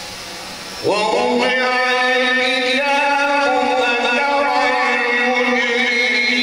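A male qari reciting the Quran in melodic tajwid style into a microphone, starting about a second in and holding one long, drawn-out note.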